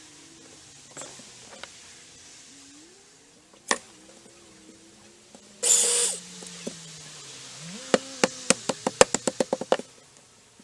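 Tool work on wooden deck boards: a single sharp knock, then a brief loud burst from a power tool, then a run of about a dozen sharp knocks that come quicker and quicker until they stop.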